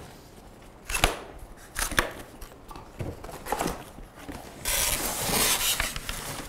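Large cardboard shipping box being handled and opened: a few sharp knocks as it is set down and its flaps are worked, then a scraping rustle for about a second and a half near the end as the foam-packed contents slide out of the box.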